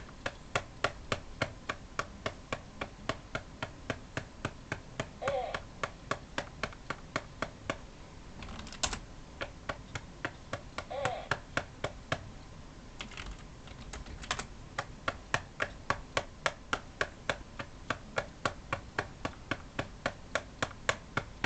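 A hand patting the hard plastic back of a Real Care Baby infant-simulator doll to burp it: a steady run of sharp, loud taps, about two to three a second.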